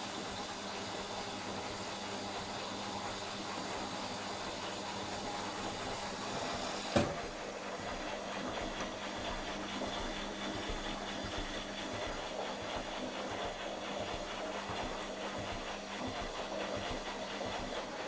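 Indesit Innex washing machine on an intermediate spin: the drum turns steadily with a motor hum and whine and the swish of water inside. There is one sharp knock about seven seconds in.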